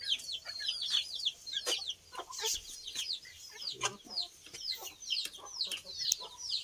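Domestic chickens clucking, with a steady stream of short, high, falling chirps, several a second.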